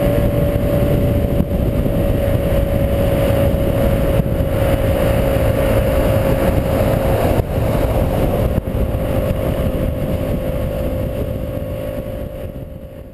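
Hyosung GT125 motorcycle's 125cc V-twin engine running at a steady highway cruise under heavy wind rumble on the microphone. Its note eases down slightly, and the sound fades out near the end.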